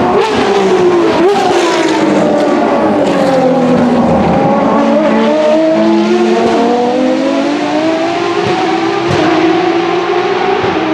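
Ferrari racing car engine on track: the revs fall for about four seconds, with two quick throttle blips near the start, then climb again and hold steady.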